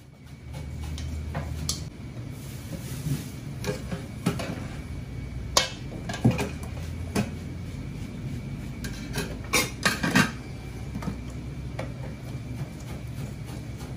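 Wooden chopsticks and a metal spoon knocking and scraping against a stainless steel mixing bowl as a shredded topping is tossed, with irregular sharp clinks and clanks, the loudest a few in the middle of the stretch. A low steady kitchen rumble runs underneath.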